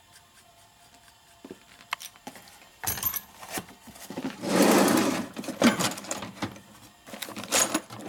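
A workshop tool run in several short bursts, the longest about a second, with clicks and knocks between them.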